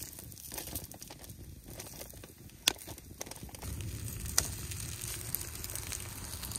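Wood campfire crackling under crab cakes sizzling on aluminium foil, with scattered sharp pops. The sizzle gets louder and steadier about halfway through.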